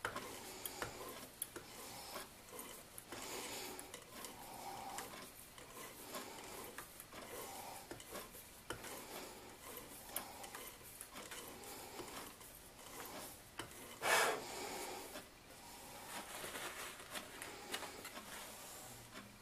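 A threading die cutting threads on a stainless steel shoulder-bolt blank, the lathe chuck turned by hand: a series of short scraping, rubbing strokes with small metallic clicks. One louder scrape comes about 14 seconds in.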